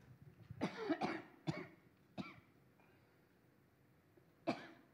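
A woman coughing: a quick run of coughs in the first couple of seconds, then one more near the end.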